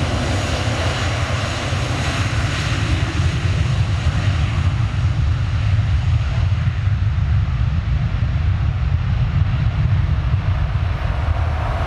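Airbus A330 jet airliner's engines, a steady deep rumble with a hiss above it, as the aircraft rolls at speed along the runway.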